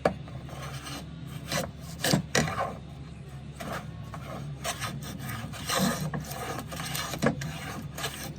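Stanley No. 5 jack plane pushed across wood in a series of short, irregularly spaced scraping strokes, the not-very-sharp iron taking shavings.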